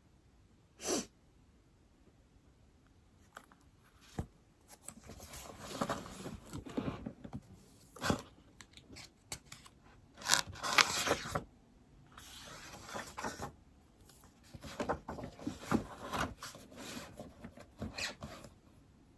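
Stylus writing on an iPad screen: a sharp tap about a second in, then runs of scratchy writing strokes coming in bursts, with short pauses between them.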